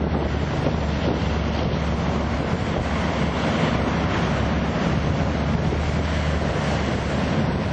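Wind buffeting the microphone: a steady, fairly loud rush with a constant low rumble underneath.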